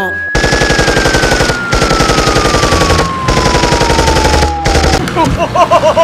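Rapid machine-gun fire sound effect, a steady stream of shots, with a long whistle-like tone falling slowly in pitch over it. About five seconds in, the firing gives way to a fast warbling tone.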